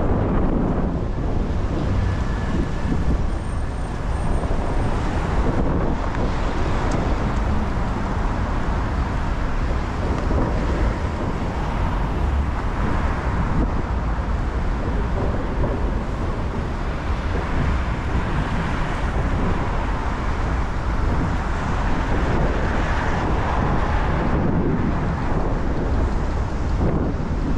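Wind buffeting the microphone in a storm, a steady rush with heavy low rumble, over city street traffic noise.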